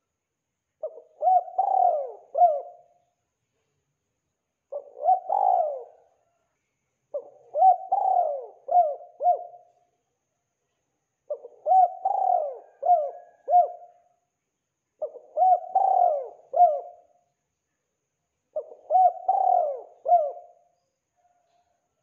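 Spotted dove cooing: six repeated phrases of three or four notes each, one every three to four seconds, with silence between.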